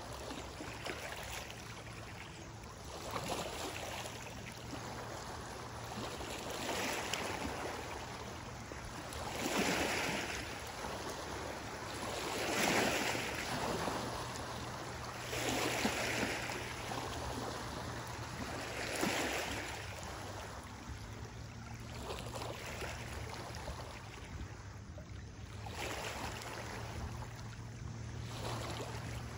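Small lake waves washing in over a gravel and rock shoreline, the hiss of each wash swelling and fading every few seconds.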